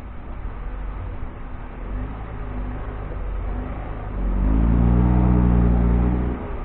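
The T30's engine running under load off road with ten oil palm seedlings aboard, revving up about four seconds in with a rising note, holding for about two seconds, then easing off near the end.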